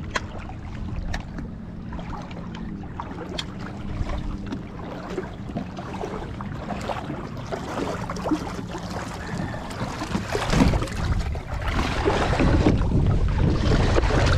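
Boat on the water with a low steady engine hum, a few clicks and wind on the microphone; the wind and water noise grows louder about ten seconds in.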